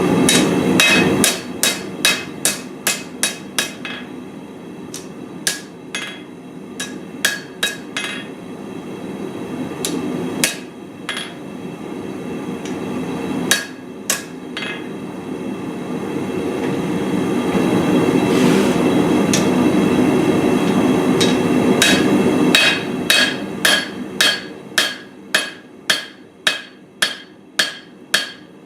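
Hand hammer forging a steel cleaver blank on an anvil: runs of sharp blows, about two a second and quicker near the end, each with a metallic ring. A steady rushing noise runs underneath and swells in the middle stretch, when the hammering pauses.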